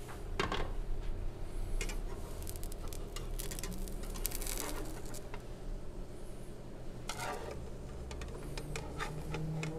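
Metal spatula scraping and tapping a nonstick frying pan as a thin crepe cooks, with scattered clicks of kitchen utensils over a low steady hum.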